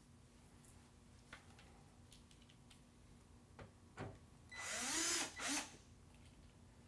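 Power drill-driver turning the Phillips screws of a case's pull-out handle, in two short bursts about four and a half seconds in, its pitch rising as it spins up. A few light clicks from the screws and handle come before it.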